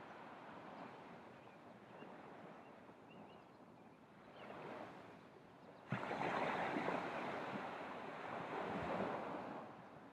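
Ocean surf on a beach: low waves wash in quietly, then about six seconds in a wave breaks suddenly and its wash runs loud for a few seconds before fading.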